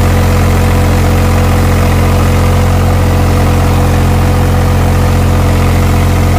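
Eicher 485 tractor's three-cylinder diesel engine running steadily while driving along, loud and close from the driver's seat beside the upright exhaust.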